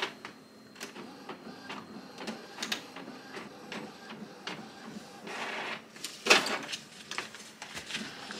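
Inkjet all-in-one printer making a photocopy: the mechanism clicks, ticks and whirs as it prints and feeds the sheet out, with a couple of louder bursts just past the middle.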